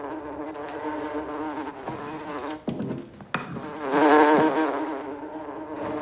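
Housefly buzzing in flight: a steady, slightly wavering droning hum that grows loudest about four seconds in. A couple of sharp knocks sound around the middle.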